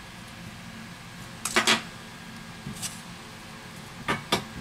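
An iPad Air 2 handled on a silicone work mat: sharp knocks and clicks as the tablet is pressed and shifted by hand. There is a quick cluster about one and a half seconds in, a lighter knock near three seconds, and two more close together near the end.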